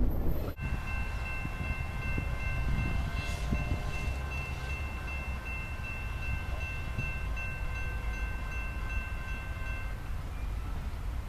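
Distant locomotive horn holding one long chord for about nine seconds, then stopping, over a low background rumble.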